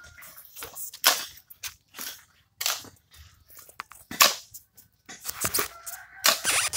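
Steel hoe scraping and chopping through a heap of damp cement-and-sand mortar mix, with about six sharp, gritty strokes at irregular spacing.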